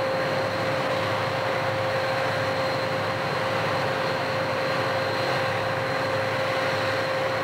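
Diesel-electric freight locomotives running steadily at a standstill, pumping up the train's brake air, with a constant whine over the engine noise.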